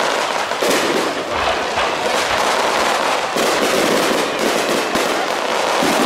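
Aerial firework shells bursting in a dense, continuous barrage: sharp bangs every second or so over a steady crackle.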